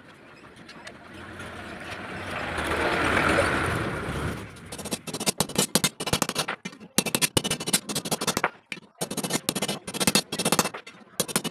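A passing vehicle swells and fades over the first four seconds. Then a small hammer taps rapidly in bursts on a steel flat-bar ring being shaped on a jig, with short pauses between bursts.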